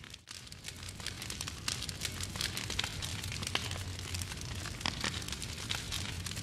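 Wood fire burning in a fireplace: constant irregular crackling and popping over a low, steady rumble of the flames. The sound dips briefly just after the start, then carries on evenly.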